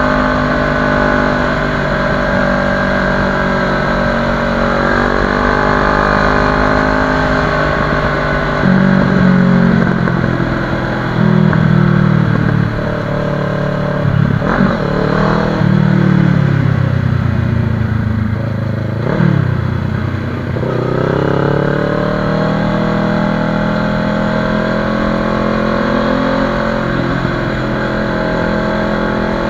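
Motorcycle engine heard from the rider's seat while riding, its note dropping and climbing with gear changes and throttle. There are a couple of brief revs in the middle, and the pitch rises steadily again under acceleration after about two-thirds of the way through.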